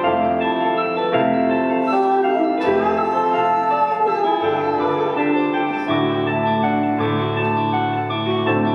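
Live band playing a slow piano-led piece: piano chords over held low bass notes, the chords changing every second or two, with no drums.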